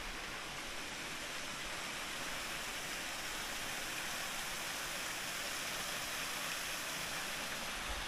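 Stream water rushing and splashing over rocks: a steady, even hiss.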